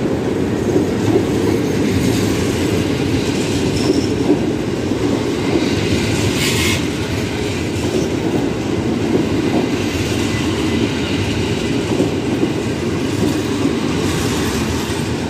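Passenger coaches of an arriving train rolling past, their wheels making a steady rumble on the rails, with a brief high squeal about six and a half seconds in.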